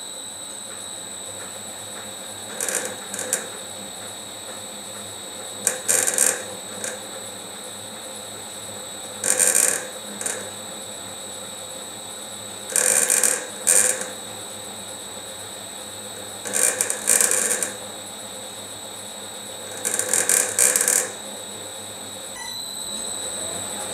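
Smart and Brown 1024 lathe running slowly in gear with a steady hum, its cutter scraping the brass clock fusee in short bursts about every three to four seconds, some in pairs: a light first scratch pass cutting the fusee's spiral thread.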